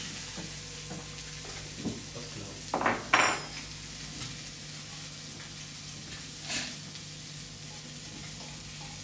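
Steady sizzle of a fish fillet frying in a pan. Over it come short squeaks and scrapes from a corkscrew being worked into a wine bottle's cork, the loudest about three seconds in and a smaller one past the middle.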